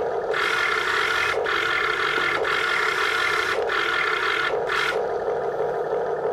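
Motor of a radio-controlled backhoe whirring: a higher whine breaks off briefly several times over a steady lower hum, and drops away about five seconds in, leaving the lower hum alone.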